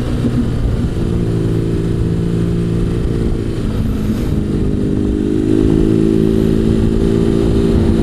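BMW R1200GS flat-twin engine running on the road, heard from the rider's seat with wind and road rumble. The engine note dips briefly about three and a half seconds in, then rises as the bike accelerates from about five seconds in, getting a little louder.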